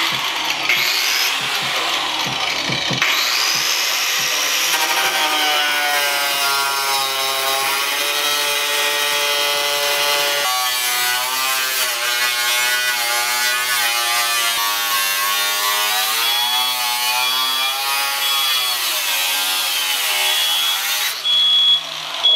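Handheld cut-off wheel cutting through a car's sheet-metal front fender: a high whine whose pitch sags and recovers as the disc bites into the metal.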